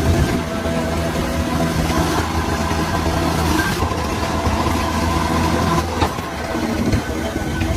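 Diesel engine of a DH17C3 crawler bulldozer running steadily while it works, with a sharp knock about six seconds in.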